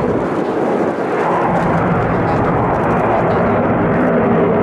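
Steady rushing jet-engine noise of a MiG-35 fighter in flight as it manoeuvres, with a brief dip about a second in.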